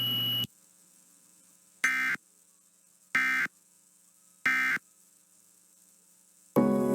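Emergency Alert System SAME data tones: three identical short warbling bursts, each about a third of a second and about 1.3 s apart. This is the end-of-message code that closes a weather warning. A steady hum cuts off about half a second in, and music starts at the very end.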